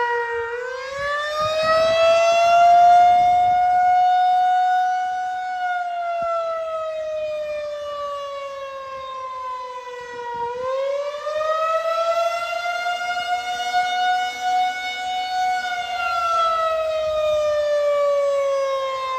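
Federal Signal 2001-130 outdoor tornado warning siren sounding a wail. Its tone climbs, holds, then slowly falls, twice over.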